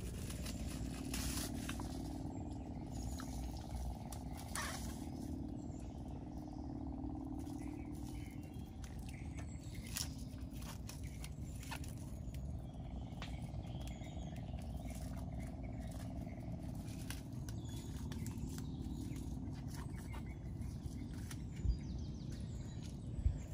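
Outdoor ambience: a steady low rumble with scattered light clicks and faint bird chirps, and two thumps near the end.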